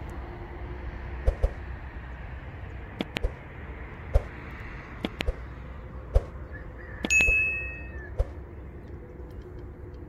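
Subscribe-button animation sound effects: sharp clicks about once a second, then about seven seconds in a bright notification-bell ding that rings briefly. A steady low rumble runs underneath.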